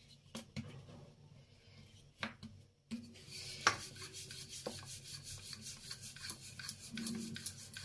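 Wooden rolling pin rolling out a flour-dusted, potato-stuffed paratha on a stone countertop: a few light taps at first, then from about three seconds in a steady, rapid rubbing as the pin goes back and forth over the dough.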